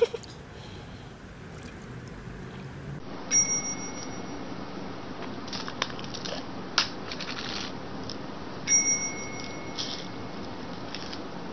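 A small bell-like ding sounds twice, about five seconds apart, with a few light clicks and taps in between.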